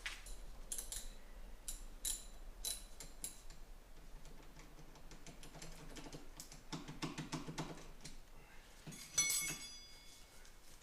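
Scattered light clicks and taps of hands and tools working on a skid steer's panels, with a brief ringing metallic clink about nine seconds in.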